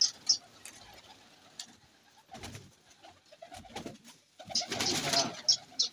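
A flock of domestic fighter pigeons cooing softly, with a louder flurry of wing flapping about five seconds in.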